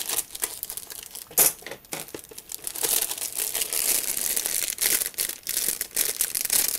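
Clear plastic bag crinkling as hands handle and pull at it, with one sharp crackle about a second and a half in and denser crackling in the second half.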